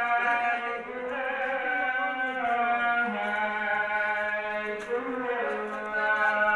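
Melodic vocal chanting: one voice holding long notes that slide between pitches, settling on a steady low note about three seconds in.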